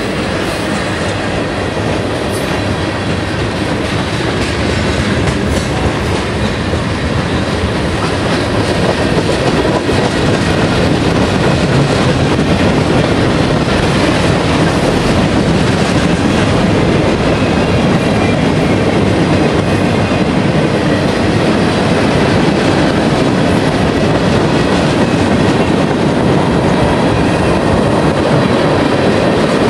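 Freight cars of a long mixed manifest train rolling past close by: a steady rumble of steel wheels on the rails, growing a little louder about eight seconds in.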